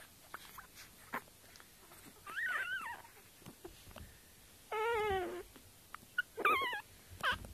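Sleeping Staffordshire bull terrier puppies whimpering: three short, wavering high-pitched whines about two seconds apart, then a brief one near the end.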